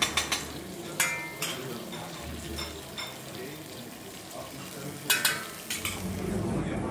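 Food sizzling as it fries, with sharp clinks of metal cooking utensils: a cluster at the start, one or two about a second in, and another cluster about five seconds in.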